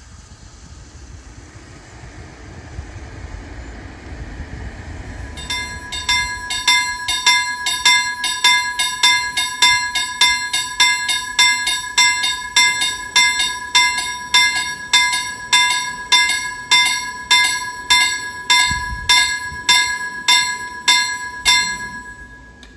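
Level-crossing warning bell striking about twice a second with a bright, ringing tone, starting about five seconds in. It warns of an approaching train and stops near the end, once the full barriers are down.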